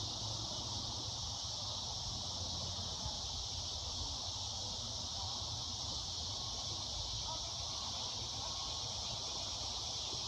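Steady high-pitched chorus of insects, unbroken throughout, over a low steady rumble.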